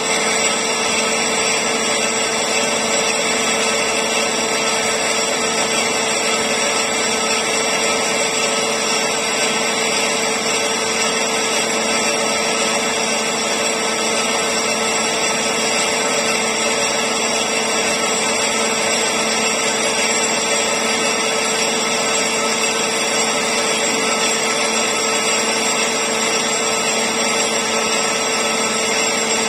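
Metal lathe taking a steady internal cut in a large bronze ring. The even noise of the cut runs with a constant machine tone underneath and steps up in level right at the start.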